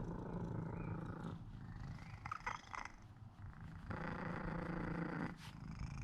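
A domestic cat purring, the low rough purr coming and going in phases, with long stretches at the start and again about four seconds in.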